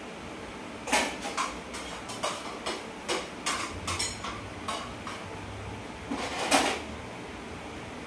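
Irregular clattering and clinking of hard objects, about a dozen sharp knocks spread over some six seconds, the loudest near the end.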